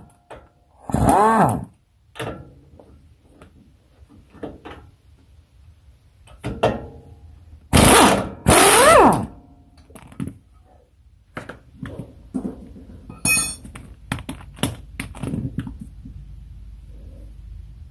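Pneumatic wrench on an air hose spinning on the lower front shock mount bolt of a Chevy Silverado. It runs in three short bursts, each rising and then falling in pitch: one about a second in and two back to back around eight seconds in. Light metal knocks and clinks follow as the parts are handled.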